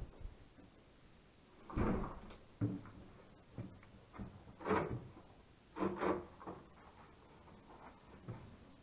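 Irregular knocks, scrapes and creaks of wooden boards, about five of them spread through the stretch, as someone clambers through a cramped wooden stairway.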